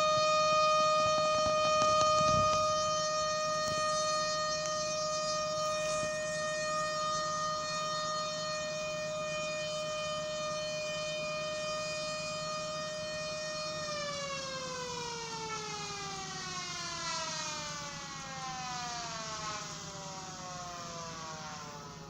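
Federal Signal Thunderbolt air raid siren holding a steady, high tone, then, a little over halfway through, winding down, its pitch sliding steadily lower as the rotor slows.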